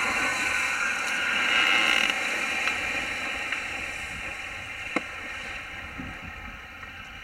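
Wakeboard cutting through the water, a hiss of spray that is loudest for the first two seconds and then slowly fades. A single sharp click about five seconds in.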